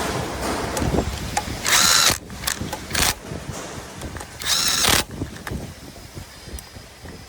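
Handheld power driver run in short bursts on the bolts of a granulator's rotor knife: two loud runs of about half a second, with a couple of quick blips between them.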